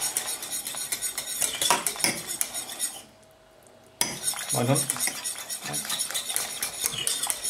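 Flat wire whisk clicking and scraping against the inside of a stainless steel saucepan in quick strokes as it whisks creamy soup. It stops for about a second near the middle, then starts again.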